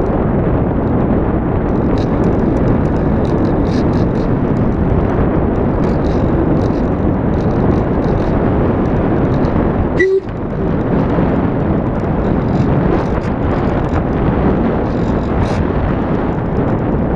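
Loud, steady wind rush of airflow over the microphone of a camera mounted on a flying radio-controlled model aircraft, with a brief click and dropout about ten seconds in.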